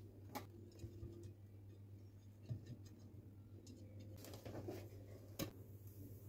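Faint scratching and a few light clicks of a silicone pastry brush spreading butter over a glass baking dish, over a low steady hum.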